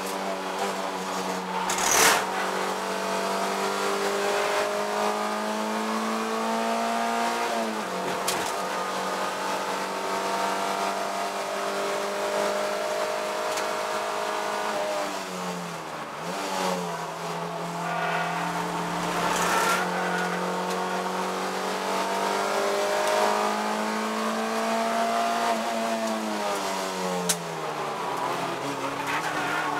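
Toyota MR2 race car engine heard on board at racing speed. Its pitch climbs slowly under throttle and falls away quickly three times as the car comes off the power. A few sharp knocks cut through, the loudest about two seconds in.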